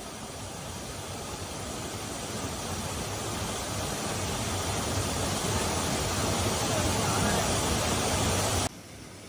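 A steady hiss of water, slowly growing louder, then cut off abruptly near the end, where a quieter hiss takes over.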